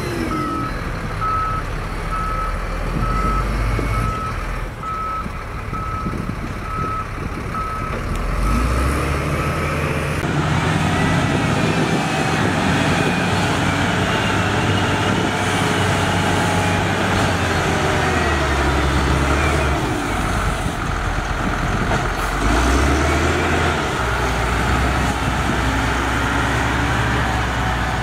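A reversing alarm beeping steadily, about one and a half beeps a second, over diesel machinery running; the beeping stops about ten seconds in. After that a Matador ML50 wheel loader's diesel engine runs, revving up and down several times as the loader works the sand pile.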